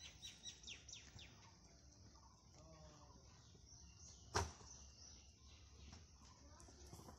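Faint quick bird chirps in the first second, then one sharp clack about four seconds in: bricks carried on a worker's head dropped onto a brick-paved ground.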